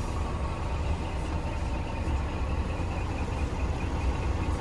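Scania P420 truck's diesel engine idling steadily, heard from inside the cab as a low, even rumble.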